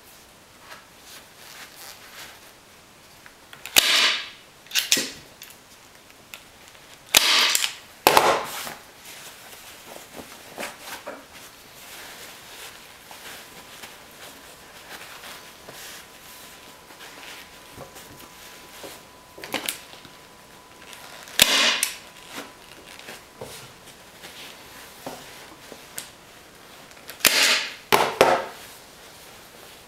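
An electric staple gun firing about seven sharp shots, mostly in pairs about a second apart, as it drives staples through upholstery fabric into a wooden seat base. Quieter rustling of the fabric being pulled taut can be heard between the shots.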